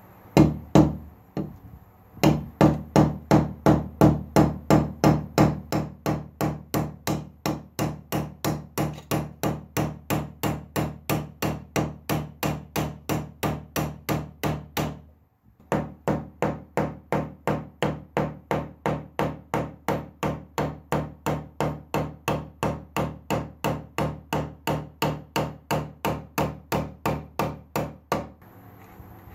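Hammer peening steel rivets through a trowel's blade and handle tang, the blade backed on a steel block: quick, even blows about three a second, each with a metallic ring. A few slower blows come first, and there is a brief pause about halfway.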